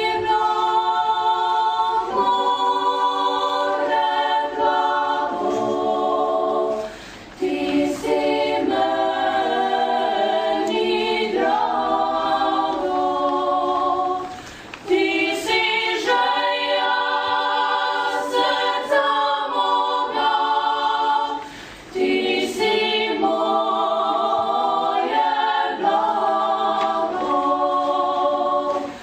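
A youth klapa of young singers' voices singing unaccompanied close harmony in the Dalmatian a cappella style, in long held phrases with short breaks about every seven seconds.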